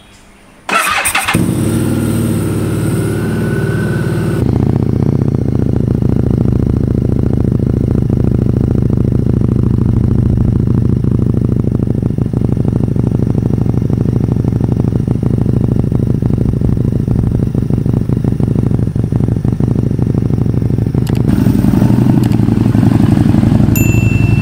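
Harley-Davidson Street 750's 749cc liquid-cooled V-twin cranked on the electric starter, catching about a second in, then idling steadily. Near the end the engine note changes and grows a little louder as the bike moves off.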